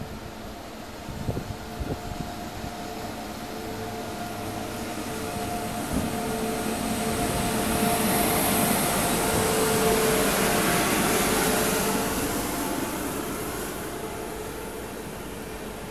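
WAP-7 electric locomotive passing slowly at the head of a passenger train, with a steady whine. The sound grows to its loudest about eight to eleven seconds in as the locomotive goes by, then eases off to the rolling of the coaches on the track.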